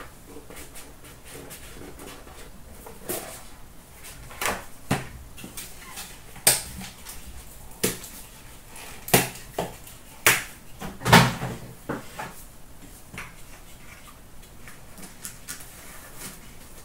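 A cardboard trading-card hobby box being opened and handled on a glass counter: a string of sharp taps and knocks as the lid and cards are lifted out and set down, the loudest a little past the middle.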